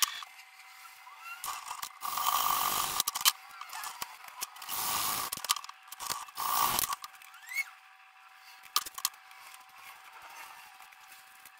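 Bamboo tubes and tools being handled at a plywood workbench. There are three short rustling scrapes in the first seven seconds, then a few light knocks, over a faint steady tone.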